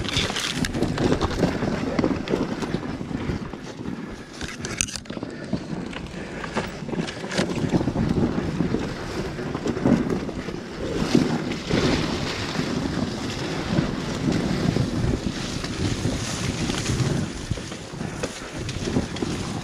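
Off-road dirt bike's engine running as the bike works along a steep, rough forest trail, its sound rising and falling, with wind noise buffeting the helmet-mounted microphone and a few knocks from the bike over the ground.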